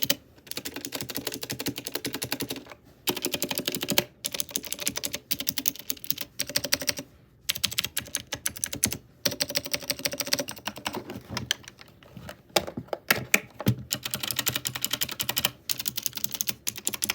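Ajazz AK33 mechanical keyboard with clicky blue switches being typed on fast: dense runs of key clicks broken by short pauses.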